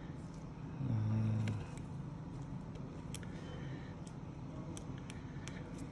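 Faint small clicks and taps from handling the phone and its new screen on the workbench, over a steady background hum, with a brief murmur from a man about a second in.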